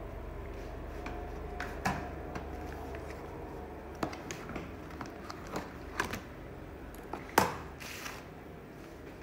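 Scattered light clicks and knocks of a toddler handling a small box and the plastic controls of a ride-on toy motorbike, about a dozen in all, the loudest a sharp knock about seven seconds in. A low steady hum underneath fades away about three seconds in.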